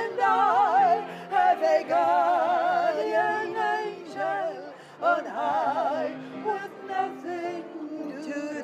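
Two women singing a duet with strong vibrato, accompanied by piano.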